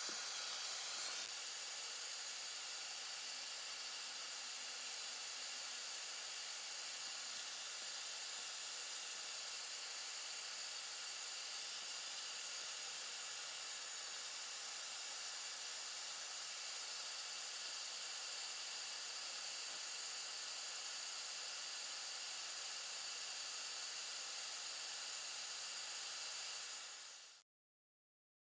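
A steady, even hiss with little low end, which fades out quickly and stops about a second before the end.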